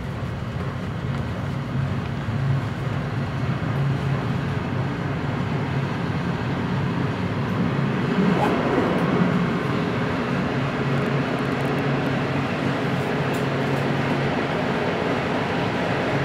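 Train running along the track, a steady low hum with rolling noise that slowly grows louder, and a brief wavering higher sound about halfway through.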